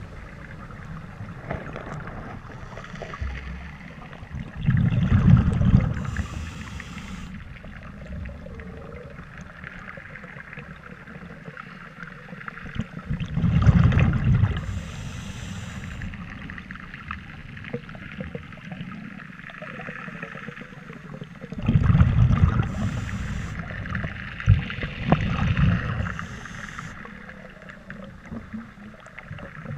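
Scuba regulator breathing heard underwater: a loud rush of exhaled bubbles comes about every eight seconds, four in all, each followed by a brief high hiss. Under it runs a steady watery background.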